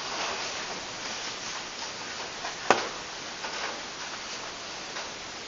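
A silent pause in a small room with a steady background hiss, broken once by a single sharp click a little past the middle.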